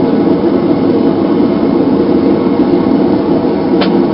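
Blowerless gas forge burner running with a steady loud roar, fed at about 5 PSI. There is a brief faint tick near the end.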